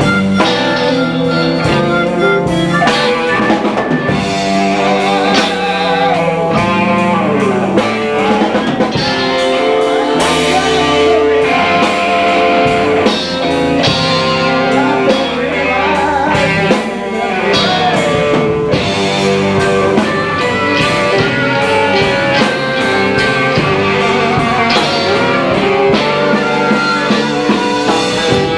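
Blues band playing live: guitar with bent notes over bass and drum kit.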